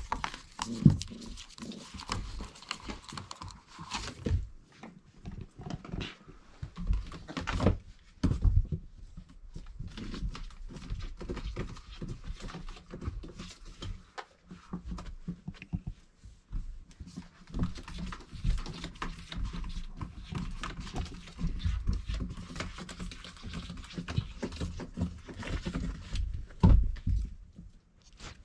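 Four-week-old Irish Setter puppies moving about and scuffling, with many irregular soft thumps and knocks throughout.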